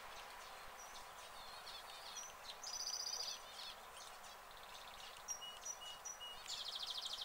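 Small birds chirping and whistling, with a rapid trill about three seconds in and another near the end, over a steady background hiss.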